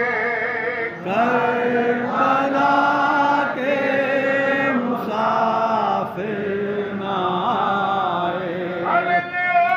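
Voices chanting a Muharram lament (noha) in long, drawn-out phrases, the pitch held and then shifting every second or so.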